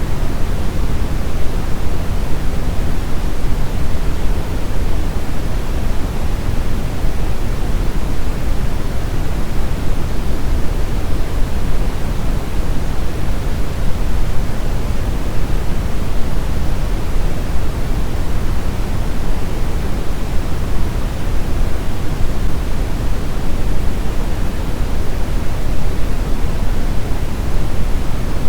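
Steady brown noise: an even, deep rushing hiss, strongest in the low end, with no change.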